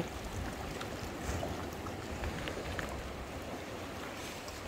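Low, steady rumble of sea water with a few faint clicks.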